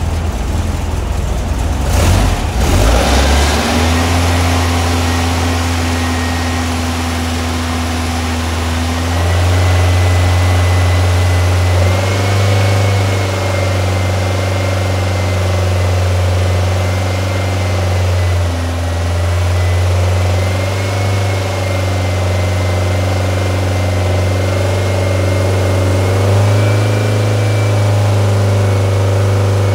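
Freshly built 1914cc VW air-cooled flat-four on dual Weber 44 IDF carburettors, running on an engine stand. It sounds rough with a sharp knock about two seconds in, then settles into a steady idle whose speed steps up slightly a few times, with a faint high whine over it.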